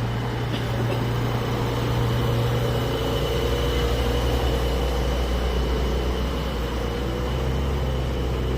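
Electric tram running: a steady low hum with a thin, high whine over it.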